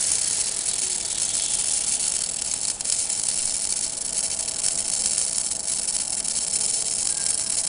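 Semi-automatic (MIG) arc welding on a steel pipe: the arc crackles and hisses steadily, with spatter, and gives a sharper crack about three seconds in.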